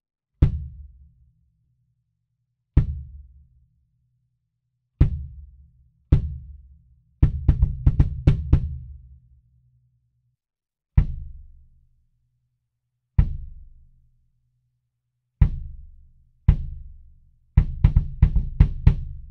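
Premier kick drum played on its own and recorded unprocessed through an AKG D112 at the resonant-head port: four single hits about two seconds apart, then a quick run of about eight hits. Each hit is a deep thud with a short low ring. The same pattern is played again, the second time with the mic turned off-axis.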